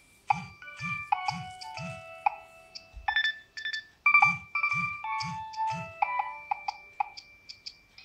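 Nokia 3100 mobile phone playing a polyphonic ringtone through its small loudspeaker: a synthetic electronic melody over a low beat of about two thumps a second. The phrase repeats, starting again about four seconds in.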